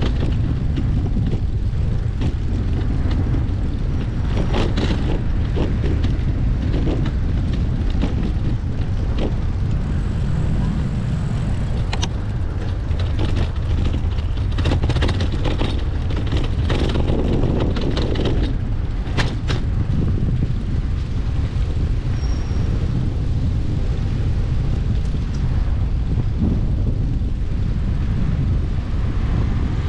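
Cycling with a GoPro: wind buffeting the microphone as a steady rumble, with rolling road noise and scattered clicks and knocks from the ride.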